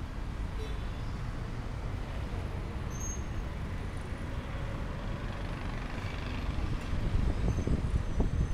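City street traffic: a steady low rumble of passing vehicles, getting louder in the last second or so.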